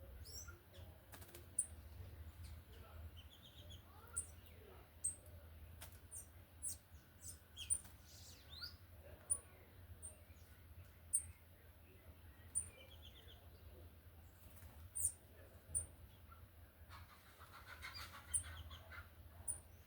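Birds chirping: short, very high-pitched chirps scattered about once a second, with a few lower chirping runs and a brief flurry of calls near the end, over a steady low hum.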